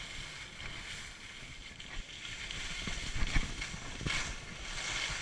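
Skis sliding and carving on packed snow, a steady scraping hiss with a couple of louder scrapes a little past the middle, over wind buffeting the microphone.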